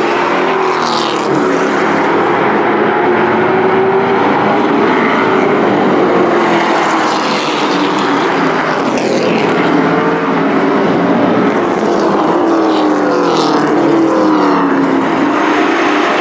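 A pack of race trucks' engines running hard around an oval track. Several engine notes overlap and keep rising and falling in pitch as the trucks accelerate and lift through the turns.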